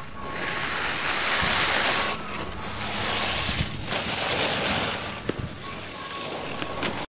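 Ski edges carving on hard-packed snow, scraping and hissing in three long surges as the racer turns through the giant slalom gates. The sound cuts off abruptly near the end.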